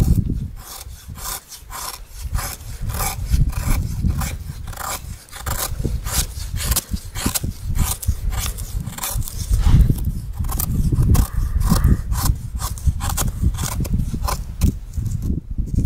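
Knife blade shaving thin curls off a dry stick to make feather sticks: repeated scraping strokes of steel on wood, about two to three a second, over a low rumble.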